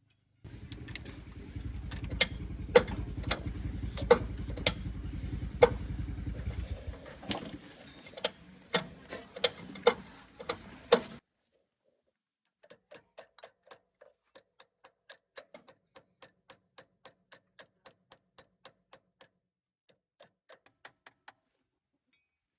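A steady low rumble with loud sharp knocks about twice a second, which cuts off suddenly. After a short gap comes a run of light, even ticks, about three a second.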